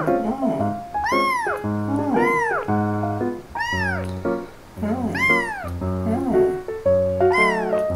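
A very young kitten meowing over and over, high rising-and-falling cries about once a second, really loud for its size.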